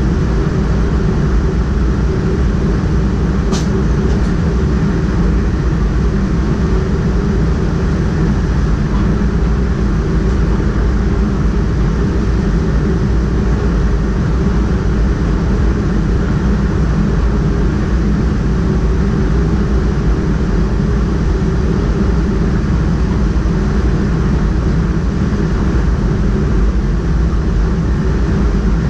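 Steady running noise of a DDAR double-deck train at speed, heard from inside the driver's cab: a continuous rumble and hiss from the wheels on the rails. A brief high squeak comes about three and a half seconds in.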